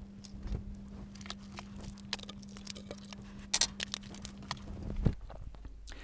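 Scattered light taps, clicks and knocks of small tools and parts being picked up and set down on a wooden workbench, over a faint steady hum that stops about five seconds in.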